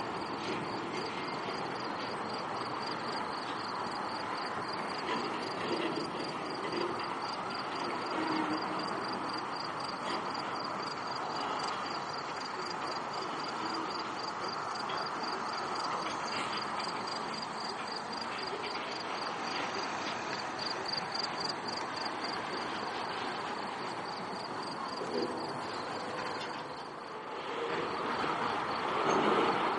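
Freight train cars rolling past with a steady rumble and wheel noise, while insects chirp in a rapid, even pulse high above it. The train noise dips briefly near the end, then swells again.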